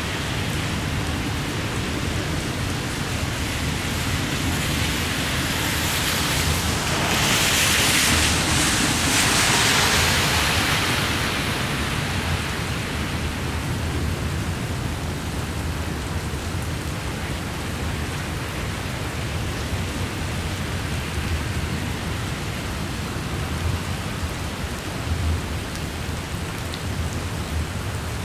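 Heavy rain pouring, swelling louder for a few seconds about seven seconds in. Under it runs the low, steady rumble of a double-stack container train rolling past.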